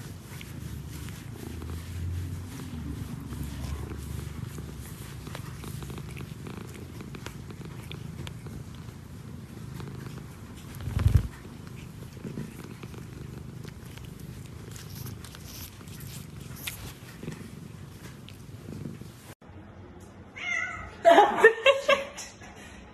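Domestic cat purring steadily while grooming another cat, with one loud thump about 11 seconds in. Near the end a few loud, short pitched sounds break in.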